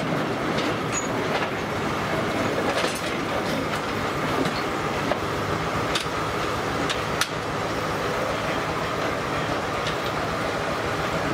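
Steam-powered sawmill running: a steady, loud mechanical rumble from the circular saw and its belt drive, with a few sharp clicks.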